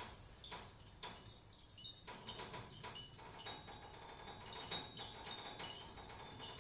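Quiet passage of live electroacoustic chamber music for flute, clarinet, violin, cello, piano and electronics: sparse, short, high struck sounds that ring on over a faint steady high tone, thinning out briefly about a second in.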